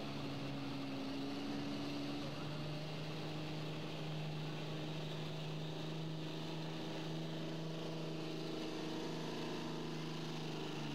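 Dodge Ram pickup's diesel engine running hard and steady under load while pulling a weight sled. The engine note shifts about two seconds in, then holds steady.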